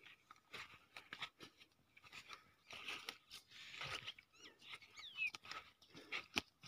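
Footsteps crunching on dry, sandy field soil, a quiet irregular series of scuffs and crunches, with two short high chirps about halfway through.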